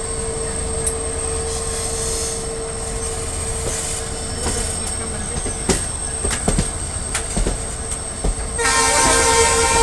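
Train running on the track with a steady rumble and sharp clacks of the wheels over rail joints in the middle. About two thirds of the way through, a train horn sounds and is still going at the end.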